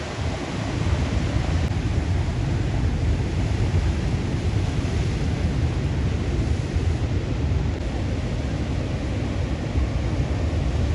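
Wind buffeting the microphone over the steady wash of sea surf on a beach.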